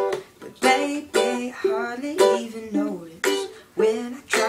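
Ukulele strummed in a steady rhythm, a chord about twice a second.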